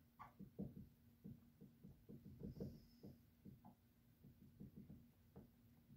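Near silence: room tone with a faint steady low hum and many soft, irregular small taps and rustles.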